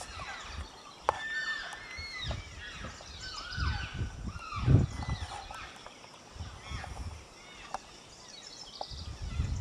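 Elk cows and calves chirping and mewing: many short high squeals that rise and fall, overlapping one another, with a few low rumbles around the middle.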